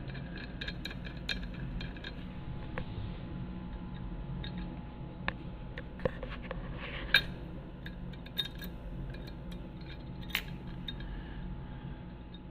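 Steel spokes clinking and tapping against the hub and rim as a motorcycle wheel is laced by hand: scattered light metallic clicks, the sharpest about seven and ten seconds in, over a steady low hum.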